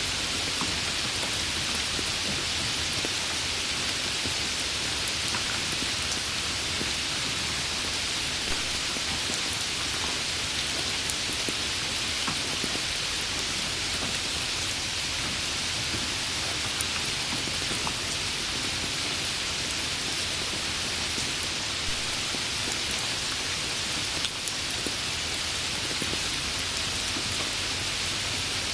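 Steady rain falling, an even hiss with scattered single drop ticks.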